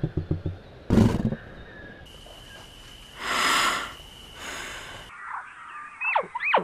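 Lion grunting in a rapid run of deep pulses, then one loud short call about a second in. A breathy snort follows about halfway, and near the end come high, squeaky calls gliding up and down.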